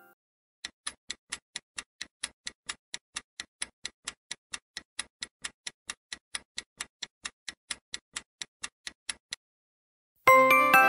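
Countdown-timer sound effect: even clock-like ticking, about four ticks a second, for roughly nine seconds. It stops, and near the end a loud, bright chime rings out and dies away as time runs out and the answer is revealed.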